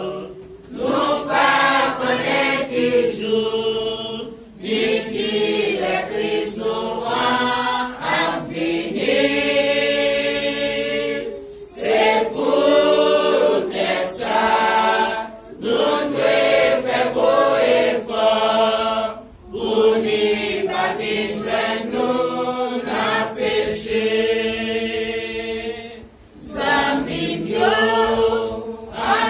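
Congregation of men and women singing a hymn together unaccompanied, in long phrases with short breaks for breath between them.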